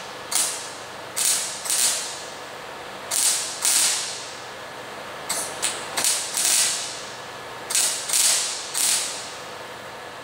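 Wire-feed welder arcing in about a dozen short bursts, each well under a second, as it fills rust holes in a thin steel fuel tank. The welder is chasing the holes back to metal that is thick enough to hold the weld.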